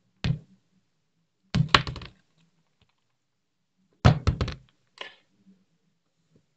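Close-up thuds and taps in short clusters: one hit near the start, then two rapid runs of several taps about 1.5 and 4 seconds in, and a lighter tap about a second later.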